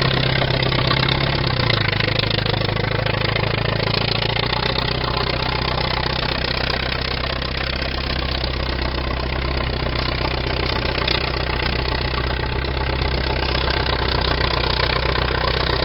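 1931 Allis-Chalmers bulldozer's engine idling steadily, settling to a slightly lower speed about two seconds in.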